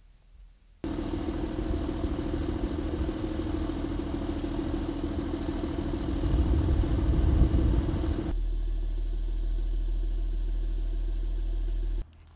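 LAV 6 armoured vehicle's diesel engine running as it drives through a sandy trench, starting suddenly just under a second in and swelling louder about six to seven seconds in. About eight seconds in it turns to a steadier engine drone with a deep hum, which cuts off abruptly near the end.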